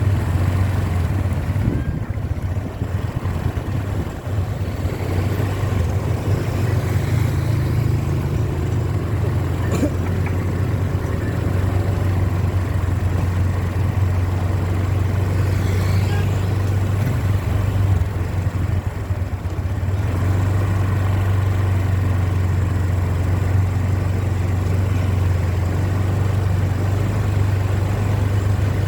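A bus engine running, a steady low drone with no horn sounding.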